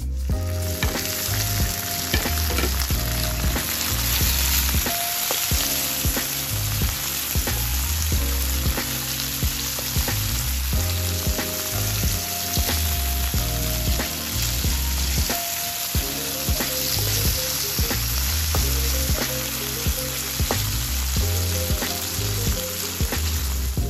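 Shallots, vegetable strips and tomato sizzling in hot oil in a wok, stirred and tossed with a spatula that ticks and scrapes against the pan. The sizzle cuts in sharply just after the start and runs steadily.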